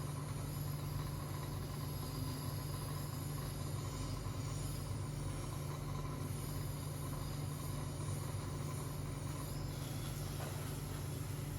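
Electric suction machine running steadily, a constant hum with a hiss, while mucus is suctioned from a patient's airway.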